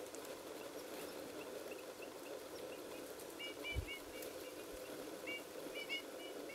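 Eurasian bullfinches calling with short, soft, high notes, scattered at first and coming more often, often in pairs, from about halfway, over a steady low background hum. A soft low thump sounds a little past halfway.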